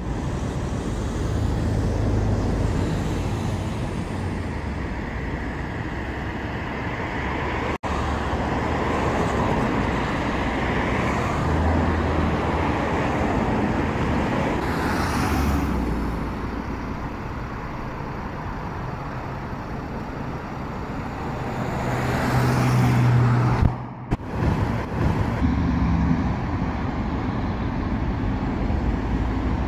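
Road traffic passing steadily, with vehicles going by close at about the middle and again a few seconds before the end, one with a low engine hum. The sound cuts out briefly twice.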